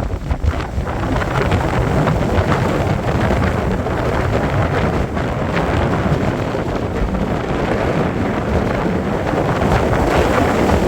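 Wind buffeting the microphone: a loud, steady rush of noise with heavy low rumble and small gusts.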